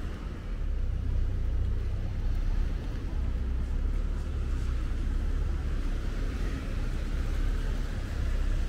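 City street ambience: a low, steady rumble with no distinct events.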